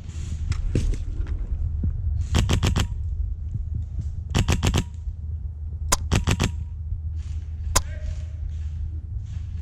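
Airsoft guns firing in short rapid bursts of about five shots each. Three bursts come roughly two seconds apart, with a single sharp crack just before the third and another single crack near the end, over a steady low rumble.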